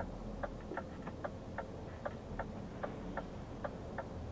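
Truck's turn-signal indicator ticking in the cab, an even tick-tock of about two and a half clicks a second, over the low rumble of the engine.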